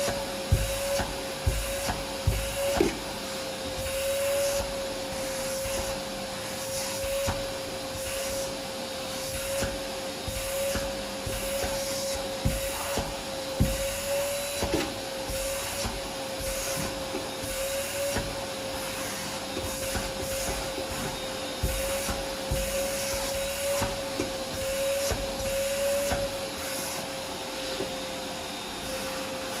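Vacuum cleaner running steadily with a constant, slightly wavering motor whine over a rush of air, broken by scattered short clicks and knocks.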